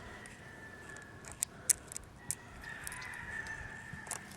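Small sharp clicks of a screwdriver driving a small silver screw into a laptop's plastic back cover, three or so scattered across the middle. A faint high drawn-out tone runs underneath during the last second and a half.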